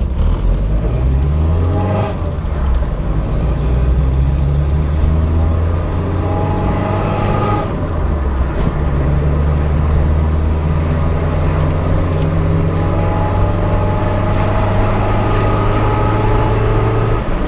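Car engine running through a homemade straight-through muffler, its pitch climbing under acceleration and dropping back about two and eight seconds in, then rising slowly again near the end.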